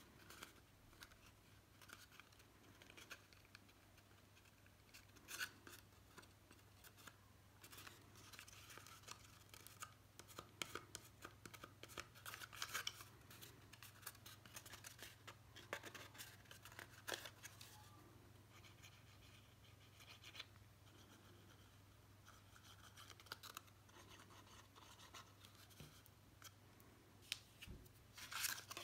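Faint rustling, scraping and small ticks of red cardstock being handled, folded and pressed together at its glued tabs, busiest in the middle stretch.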